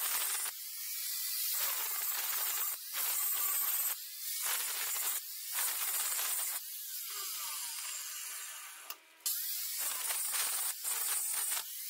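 Angle grinder with an abrasive disc grinding the steel of a blacksmith's hammer-chisel held in a vise: a harsh hissing grind that swells and eases in passes a little over a second apart. It drops off briefly about nine seconds in, then picks up again.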